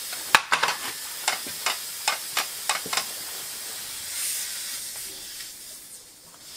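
A string of about ten small clicks and knocks as the floor pump's hose comes off the tyre valve, over a steady hiss that swells briefly about four seconds in: air leaking from the inner tube's valve, which is not sealing.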